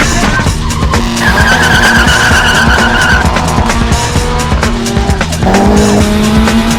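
Car tyres squealing in a skid for about two seconds, with an engine running and revving up near the end, over music.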